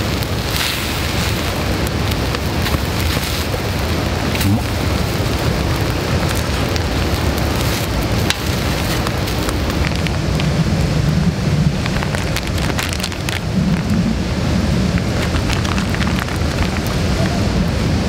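Monjayaki batter sizzling on a hot griddle plate over a wood fire: a steady frying hiss with scattered small crackles and clicks.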